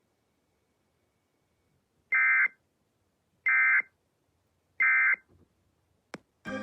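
Emergency Alert System end-of-message code: three short, identical bursts of the warbling two-tone data signal about a second apart, marking the end of the broadcast alert. A single click follows near the end.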